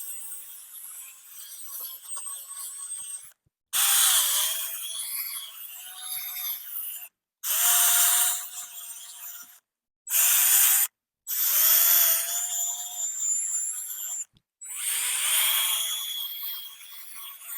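Power drill spinning a 3000-grit sanding pad against a plastic headlight lens, run dry. It goes in about five short runs, each starting with the motor whine rising as it spins up, with a steady hiss of the pad over the lens.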